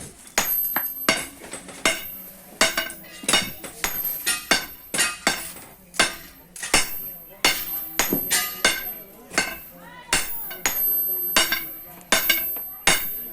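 Blacksmith's hammer striking metal on an anvil: a steady run of blows, about two a second and sometimes in pairs, each with a short metallic ring.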